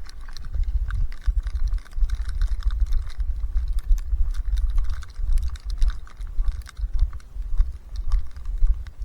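Footsteps crunching through deep fresh snow, a steady run of short crackly crunches, over the low rumble of wind buffeting the microphone.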